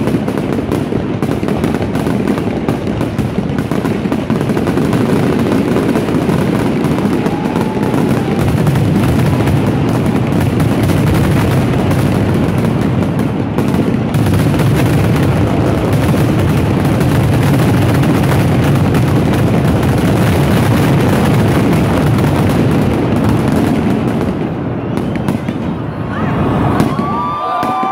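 Fireworks finale barrage: shells bursting so close together that the reports merge into one continuous rumble and crackle. It dies away near the end, and a crowd starts cheering and shouting.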